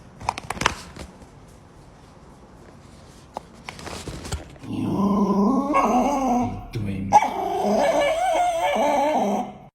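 A dog making two long, drawn-out whining vocalisations with a wavering pitch in the second half, after a few sharp clicks near the start.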